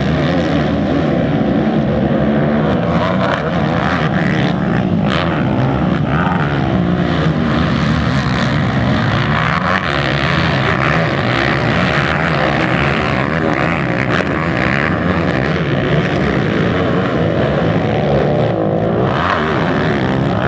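Several racing quad ATV engines running hard together, their pitch rising and falling over and over as the riders rev, shift and back off.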